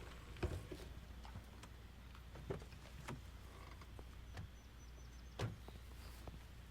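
Faint room tone: a steady low hum with a few scattered soft clicks and knocks.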